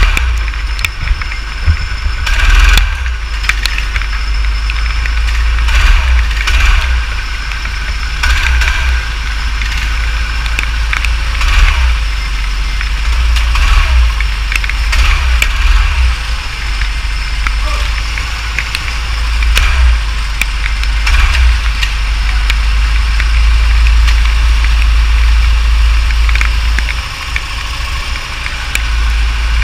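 Go-kart engines idling and running slowly, heard through a wet onboard camera microphone. There is a heavy low rumble throughout, with repeated knocks and crackles on the mic every second or two.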